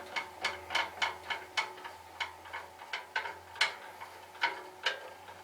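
Band saw blade-tensioning mechanism being wound up by hand, giving a run of sharp clicks about three a second that thin out near the end.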